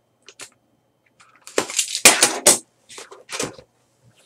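Plastic shrink wrap on a trading card box is slit with a box cutter and pulled off, and the box lid is opened. It makes short crinkling, scraping and rustling noises, loudest in a cluster about two seconds in.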